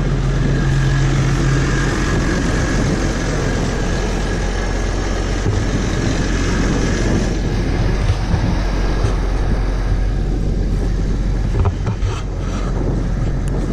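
Tractor engine running steadily while pulling a Claas Uniwrap round baler-wrapper that is picking up and baling damp hay for haylage, with a faint high whine through the first half and a few knocks about twelve seconds in.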